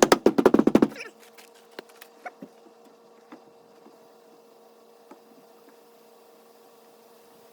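Air pump inflating a tube behind a car's dented panel: a fast, even clatter of strokes that stops about a second in. Afterwards only a few faint ticks over a steady low hum.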